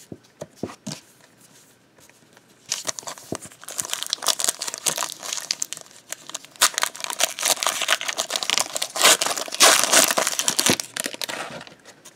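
Foil wrapper of a Topps trading-card pack being torn open and crinkled by hand: a dense crackling that starts about three seconds in and runs for about nine seconds, after a few light clicks of cards being handled.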